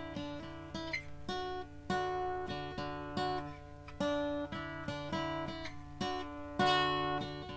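Harley Benton HBD-120CE dreadnought cutaway acoustic-electric guitar being played: chords picked and strummed, a new chord or note about every half second to a second, each left to ring.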